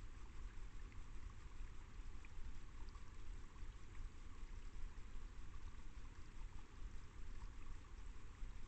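Faint, steady rushing of a small woodland stream trickling over the forest floor, with a low rumble underneath.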